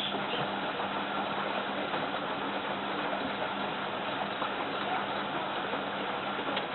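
A steady machine hum with one constant low tone, starting abruptly and cutting off near the end.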